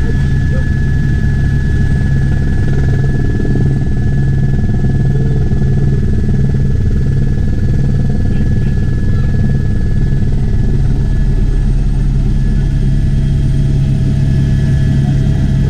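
Helicopter in flight heard from on board: a steady engine drone with a fast, even rotor beat and a thin, steady high whine.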